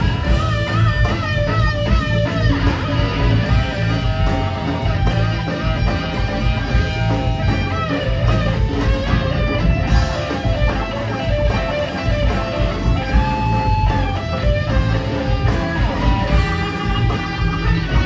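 Live rock band playing: electric guitar lead lines that bend in pitch, over bass guitar, drums, percussion and keyboards. One guitar note is held for about a second past the middle.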